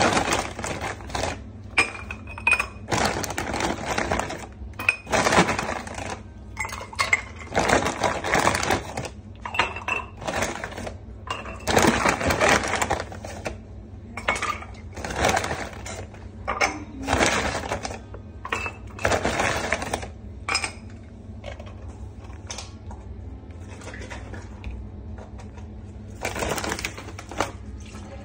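Ice cubes dropped into small glass tumblers, clinking and clattering irregularly for about twenty seconds, then a quieter stretch with one more clatter near the end.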